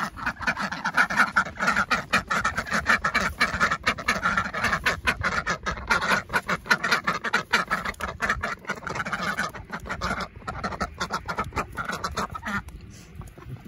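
A flock of domestic ducks quacking without pause, many calls overlapping in a rapid chatter, dying down near the end.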